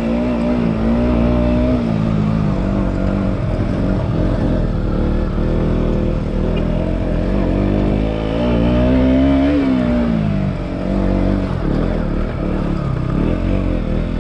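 KTM Duke 125's single-cylinder engine running under load as the bike rides a rough dirt track, its pitch shifting with the throttle, rising to a peak about nine seconds in and then dropping away.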